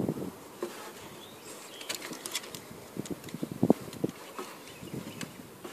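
A Great Dane and a small terrier play-fighting: short, rough growls and mouthing noises in uneven bursts, with scattered sharp clicks. The loudest burst comes a little before four seconds in.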